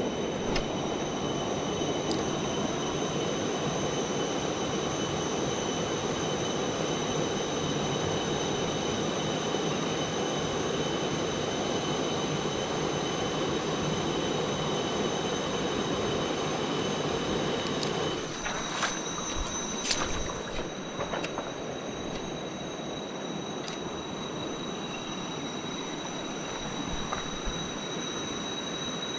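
Rushing water of a river rapid, with insects whining at several steady high pitches. About eighteen seconds in, the water sound drops and one of the whines stops, followed by a few clicks.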